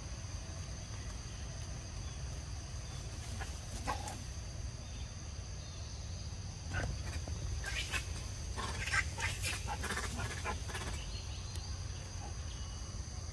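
Macaques giving a cluster of short, sharp squeals in the middle, with rustling through the undergrowth, over a steady high insect drone.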